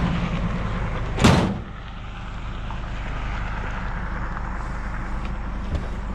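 A vehicle engine idling with a steady low hum, and a single loud bang about a second in.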